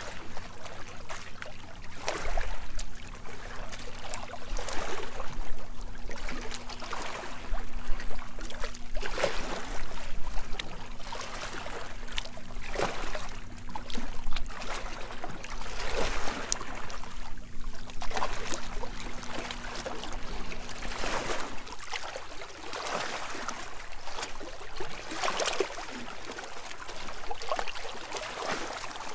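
Shallow seawater lapping and sloshing over rocks in irregular surges. A faint steady low hum runs underneath and stops about three-quarters of the way through.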